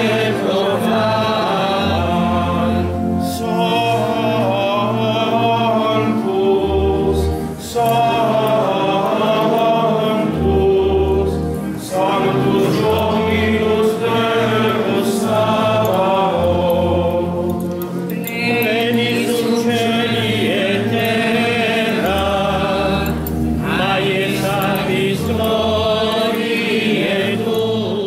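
A congregation singing a hymn together, many voices over low sustained notes that change in steps.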